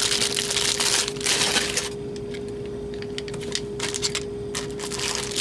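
Plastic packaging bag crinkling as a wrapped wall adapter is handled, loud for the first couple of seconds. Then comes a quieter stretch of small handling clicks, and the crinkle returns near the end. A steady hum runs underneath.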